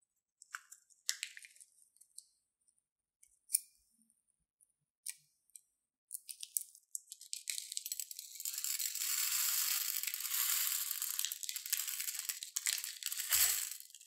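Plastic piping bag crinkling and clicking as it is squeezed and handled, with a scissors snip at the tip; then small clear plastic beads stream out of the bag onto a glass bowl in a steady rattling hiss lasting about six seconds.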